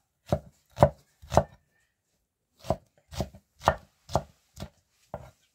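Knife chopping food on a cutting board in slow single strokes: three strikes, a short pause, then six more at about two a second.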